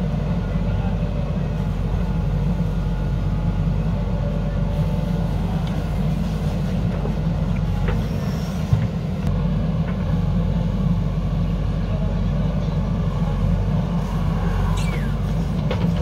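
JCB backhoe loader's diesel engine running steadily under load while the backhoe arm digs soil and lifts the bucket. One sharp clunk near the middle.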